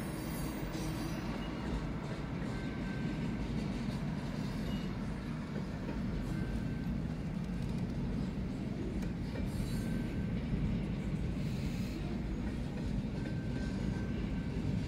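Intermodal freight train cars rolling past: a steady rumble of steel wheels on rail, with a few brief high-pitched squeals.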